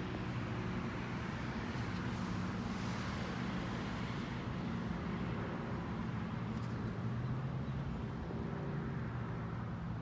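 Adventure-touring motorcycle engine idling steadily.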